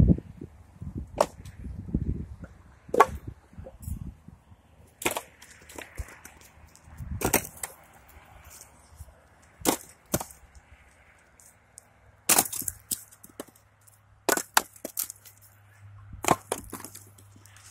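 Splitting maul striking firewood rounds on a chopping block by hand: a sharp crack of wood splitting about every two seconds, some strikes followed by a quick rattle of pieces falling.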